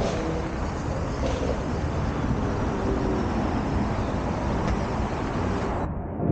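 Outdoor street noise: a steady rumble of traffic with faint voices mixed in.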